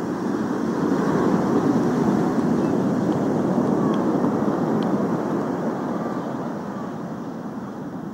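Breaking waves washing up the beach, mixed with wind noise: a steady rush that slowly fades over the last few seconds.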